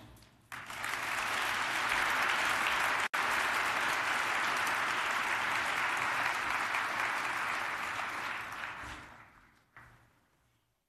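Large lecture-hall audience applauding. The clapping builds within the first second, holds steady with a split-second dropout about three seconds in, then dies away over the last two seconds.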